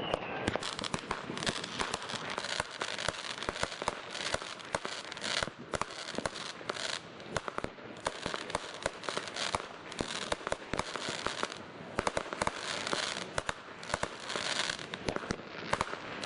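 Aerial fireworks bursting overhead in a dense, continuous crackle: many sharp pops and small bangs overlapping, with no pause.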